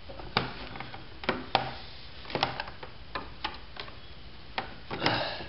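Irregular sharp clicks and taps of a flathead screwdriver prying back the plastic locking tabs on an under-hood electrical box.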